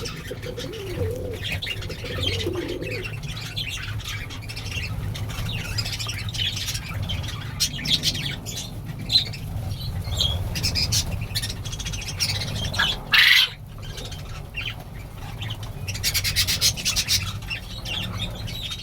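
Pigeons cooing for the first few seconds, with other small birds chirping throughout and one loud squawk about two-thirds of the way in, over a low steady hum.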